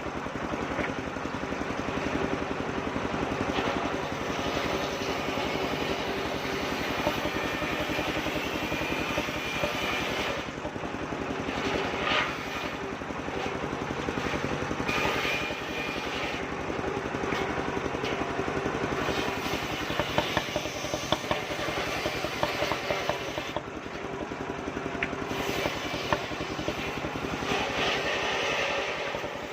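Homemade circular-saw wood mill running on a small engine, its sound rising and falling as the load changes. A few sharp knocks come about two-thirds of the way through.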